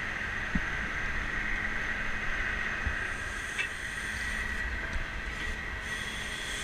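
A rear-mount grapple truck running steadily: engine and hydraulic pump with a constant whine, heard from the operator's tower, with a couple of light clicks.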